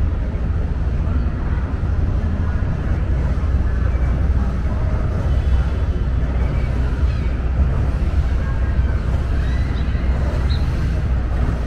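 Tour boat's engine running in a steady low rumble as the boat passes on the river, with faint voices in the background.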